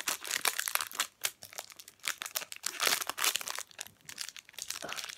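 Foil trading-card pack crinkling and tearing as it is pulled open by hand, a dense run of irregular crackles.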